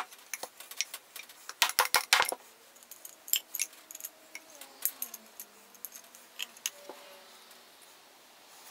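A quick run of sharp mallet raps on an oak chair part about two seconds in, shocking an old hide-glue joint apart. Scattered light clicks and knocks follow as the loose wooden chair parts are handled and set down.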